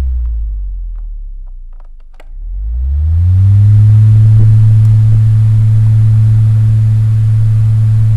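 Three-speed electric fan's motor humming as it winds down, its pitch falling and fading, with a few faint clicks about two seconds in; it then spins back up, the hum rising in pitch and steadying at full running speed.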